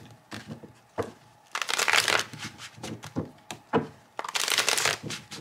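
A deck of tarot cards shuffled by hand: two bursts of quick papery card-on-card rustling, one about one and a half seconds in and one near the end, with a few sharp card clicks between.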